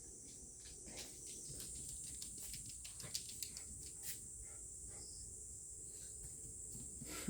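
Steady high-pitched insect drone, with a flurry of small, irregular clicks and ticks for a few seconds in the middle.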